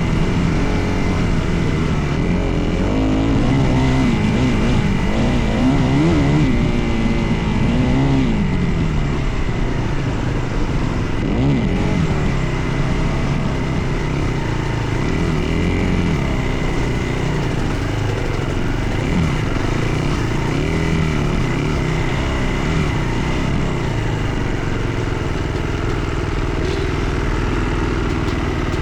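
Dirt bike engine being ridden, its pitch rising and falling again and again as the throttle opens and closes.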